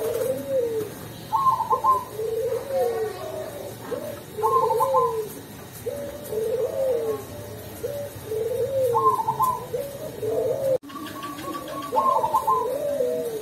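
Caged zebra dove (perkutut, cemani variety) cooing its song over and over: a run of low rolling coos, with a brief higher stuttered note about four times.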